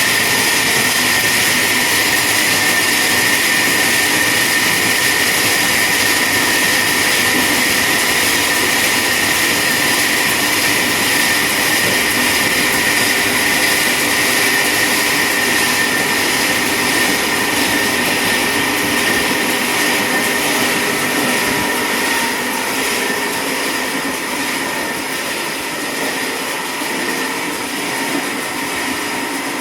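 Chainsaw cutting steadily through a large tree trunk, running at a steady pitch without a break.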